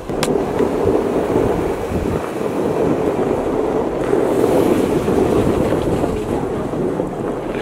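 Jeep Wrangler driving in four-wheel drive over a snowy trail: a steady rumble of engine and tyres with wind buffeting the microphone, and one sharp click just after the start.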